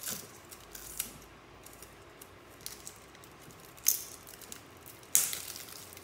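Scissors snipping into an album's plastic shrink-wrap, followed by scattered crinkles and crackles of the plastic being handled and pulled at, with the two sharpest about four and five seconds in.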